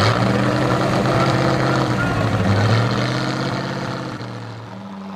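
Tatra 805 off-road truck's engine pulling under load as the truck crawls across a steep slope, its revs dipping and rising. Near the end the revs drop and the sound fades.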